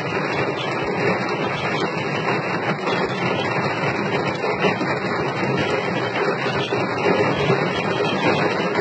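Rain falling steadily, a dense even noise with no pauses.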